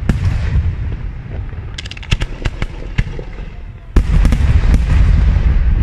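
Aerial firework shells bursting: a sharp bang at the start, a cluster of crackling pops around two seconds in, then a heavy bang about four seconds in followed by deep rumbling.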